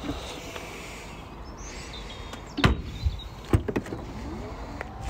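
The opening rear glass of a BMW F31 Touring's split tailgate is pulled down and shut with a loud knock about two and a half seconds in. A second sharp knock and clicks follow from the tailgate latch, then the power tailgate's motor whirs as it begins to lift.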